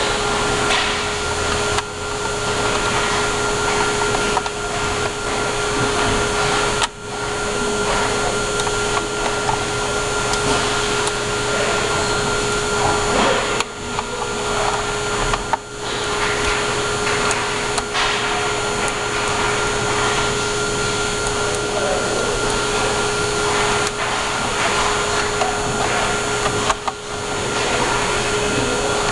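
Steady machine noise, a hiss with a constant hum and a higher whine, like a fan or blower running; it dips briefly a few times.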